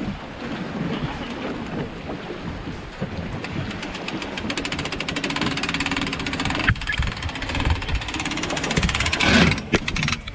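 Boat's outboard motor running under load and revving up, with a sharp crack about two-thirds in and a loud surge near the end before the sound drops away suddenly.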